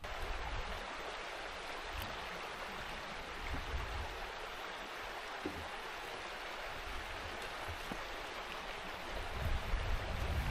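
Steady rush of a fell stream's running water. Low wind buffeting on the microphone builds near the end.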